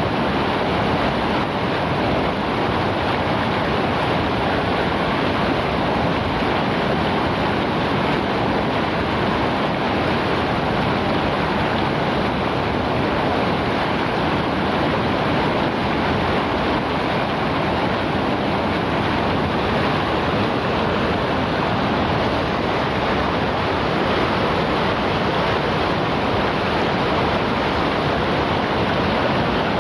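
River water rushing steadily, a dense, even wash of flowing water with no change through the stretch.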